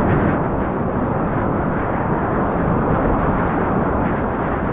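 Whitewater rapids of the Ötztaler Ache rushing loudly and steadily.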